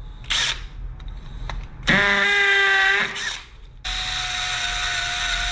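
Power drill running in short bursts: a brief whirr just after the start, a second run about two seconds in that spins up and holds for about a second, and a longer steady run from about four seconds in.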